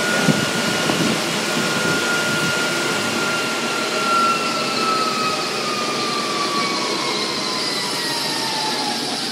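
1988 Honda CRX Si running on a smog-test dynamometer's rollers: a steady mechanical noise with a high whine that slowly falls in pitch over several seconds.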